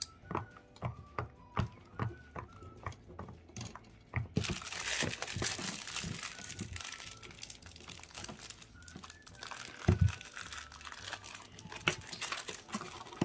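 Light clicks and taps of small plastic toys being handled, then, a few seconds in, plastic packaging crinkling and tearing as a toy is unwrapped, with one low thump near the end.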